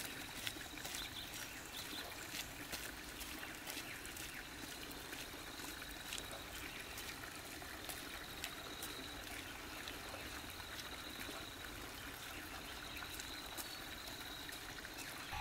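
Quiet outdoor ambience of trickling water, with a thin steady high-pitched whine and scattered light ticks.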